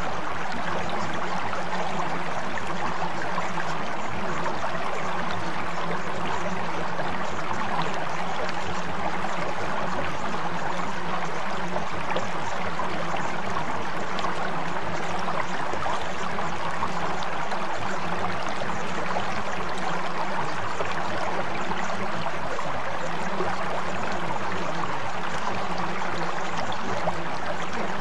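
Steady flowing water, like a stream, running evenly with no breaks, over a steady low hum.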